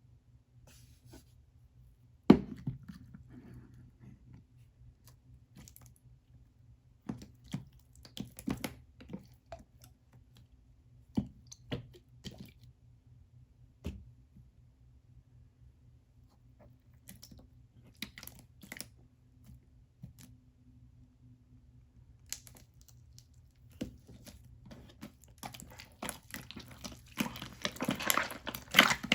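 Scattered taps, knocks and crisp crunching from handling a croffle, with one sharp knock about two seconds in and denser crinkling and crunching near the end.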